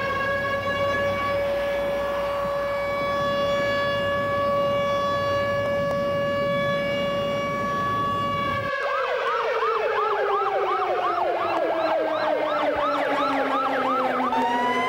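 A civil defense siren sounds one long, steady tone. About nine seconds in, it cuts to an emergency-vehicle siren wailing slowly down in pitch, with a fast yelping siren over it at about three cycles a second. Right at the end, another siren starts to rise.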